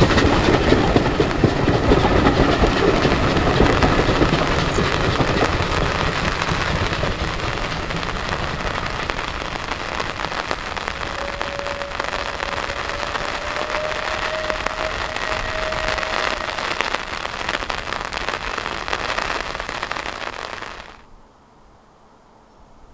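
Steam-hauled train running past with heavy wind and rain noise over it, the train sound easing as it draws away. The sound cuts off abruptly near the end.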